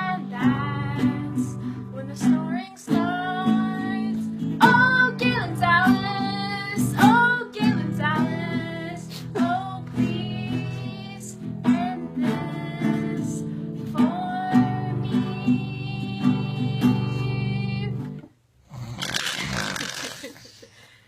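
A voice singing a gliding improvised melody over guitar chords; the music stops about 18 seconds in, followed by a brief burst of noise.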